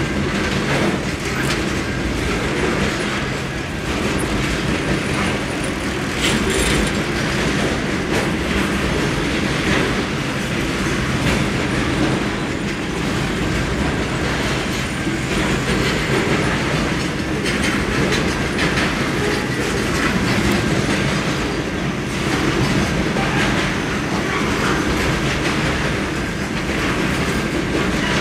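Double-stack container wagons of a freight train rolling past: a steady rumble and clatter of steel wheels on rail, with a continual clickety-clack of wheels over the track.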